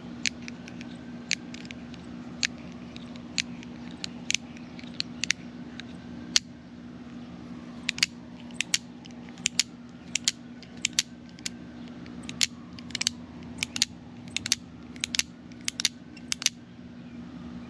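A carabiner's spring-loaded gate being worked open and snapping shut over and over, a string of sharp metallic clicks that often come in quick pairs. This is working freshly applied dry lube into the gate mechanism.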